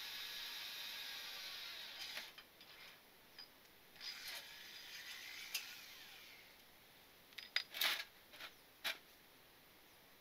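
Cordless drill boring into the Civic's front bumper reinforcement bar: the motor's steady whine stops about two seconds in. Short bursts of drilling follow, then a few sharp clicks and knocks near the end.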